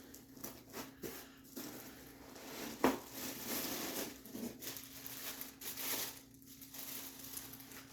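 Handling noise as objects are moved about: rustling and light crinkling with scattered small knocks, and one sharper knock about three seconds in.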